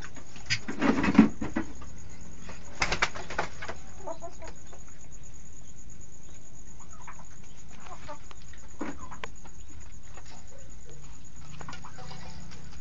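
Domestic turkeys in a pen: a loud flurry of wing flapping about a second in and a shorter one around three seconds, then only faint scattered calls.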